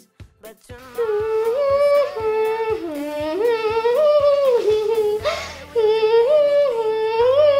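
Background music: a wordless melodic lead, humming-like, over a light steady beat and bass. It comes in louder about a second in.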